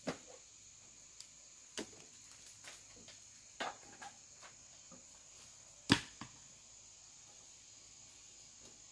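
A few scattered knocks and clunks from house demolition work, the loudest about six seconds in, over a steady high drone of insects.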